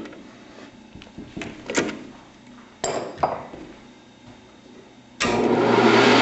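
A few clunks and knocks of metal parts being handled, then about five seconds in the converted Grizzly G0602 CNC lathe starts abruptly, running steadily with a rising whine.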